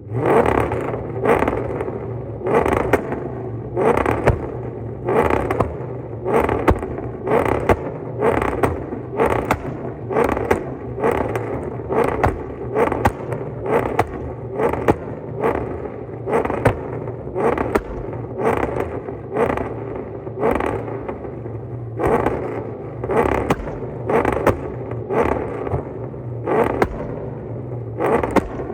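Cammed Ford Crown Victoria V8 held against an MSD two-step rev limiter, giving a steady rumble broken by sharp bangs at a regular pace of about three every two seconds. This is the limiter cutting the ignition, which sets off exhaust pops.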